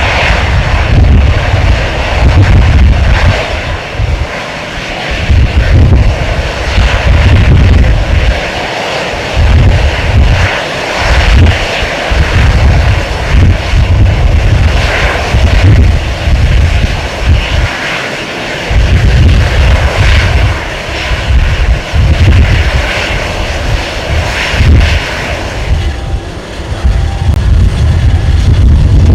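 Airbus A320's CFM56-5B jet engines running at idle as the airliner taxis in, a steady jet hiss. Under it a heavy low rumble swells and drops away irregularly, like gusts of wind.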